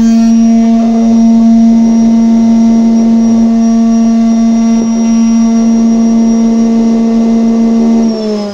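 Router mounted in a router table running at full speed, a steady high hum. A softwood board is fed past the cutter at the start, then the router runs free. It is switched off near the end, its pitch falling as it spins down.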